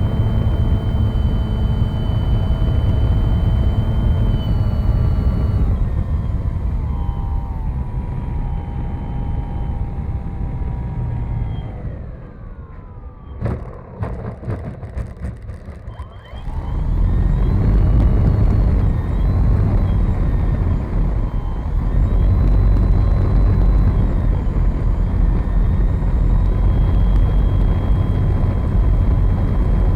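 RC model airplane's motor and propeller heard from on board, with wind rush. It runs steadily with a whine, is throttled back about six seconds in with the pitch falling, runs low for a few seconds with one sharp click, then is throttled up again and runs steadily at high power.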